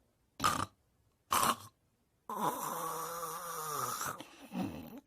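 Snoring: two short snores about a second apart. After a silent gap comes one long snore of about two seconds with a wavering pitch, then a brief shorter one near the end.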